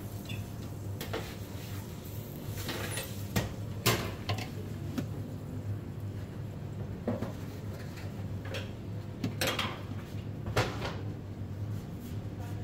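Irregular knocks and clatter of a ladle and hands against stainless-steel food pans at a pizza prep counter, over a steady low hum.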